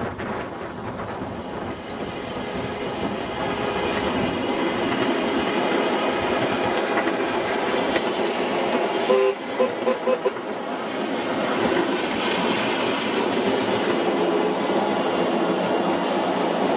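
A 7.5-inch gauge ride-on miniature train running steadily along its track, with a constant noise of wheels on rail. About nine seconds in, the train sounds a quick string of about four short toots.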